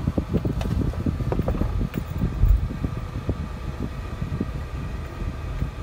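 Car driving slowly, heard from inside the cabin: a low engine and road rumble with irregular small bumps, a heavier thump about two and a half seconds in.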